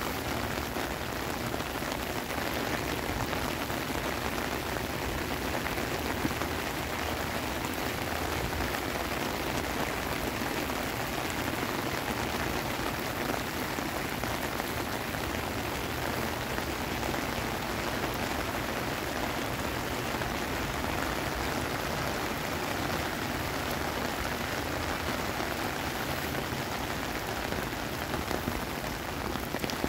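Heavy rain falling steadily, a dense even hiss of drops hitting grass, puddles and pavement.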